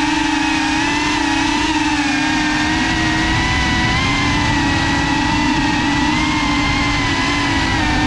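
GEPRC CineLog FPV drone's brushless motors and propellers whining steadily, the pitch wavering a little with throttle, over a rumble of wind and prop wash on the onboard GoPro's microphone.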